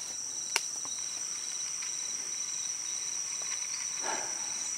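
Steady, high-pitched drone of Amazon rainforest insects, with a single sharp click about half a second in.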